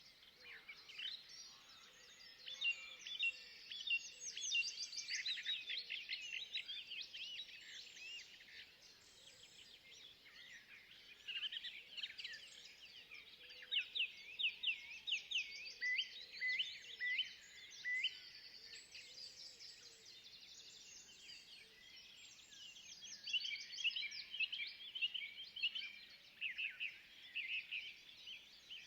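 Several songbirds singing in a forest, with rapid high chirping phrases that come in bouts and overlap, over a faint steady background hush.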